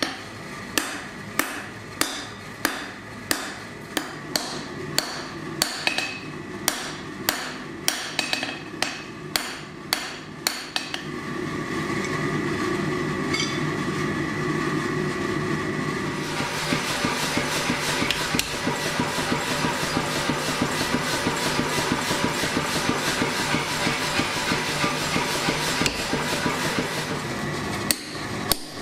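Hand hammer striking a glowing bar of titanium on a steel anvil. The blows are sharp and evenly spaced, about three every two seconds, for the first ten seconds or so. For the rest of the time the strikes come so close together that they run into a continuous clatter.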